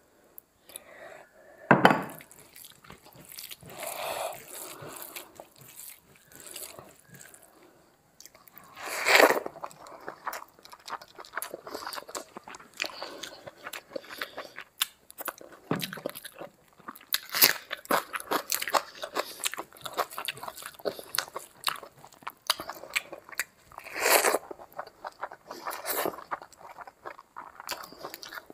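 Close-miked eating: fingers mixing rice with curry and mouthfuls being chewed, in a run of irregular wet smacks, squelches and crunches, a few of them much louder.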